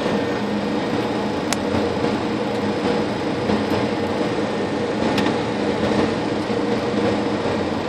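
Steady flight-deck noise of a Boeing 737 on final approach: a constant rush of air with engine and air-conditioning hum. Two sharp clicks come through it, about a second and a half in and about five seconds in.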